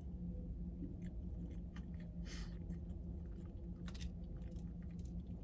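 A person chewing a mouthful of chicken biscuit with the mouth closed: soft, irregular, wet mouth clicks and smacks, over a steady low hum.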